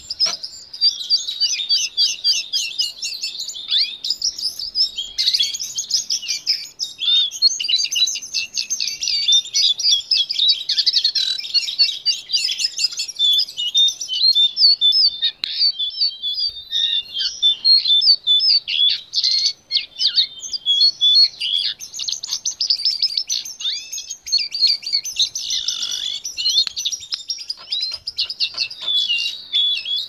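A jongkangan singing a long, rapid, jumbled song of high twittering and chattering notes, almost without a break.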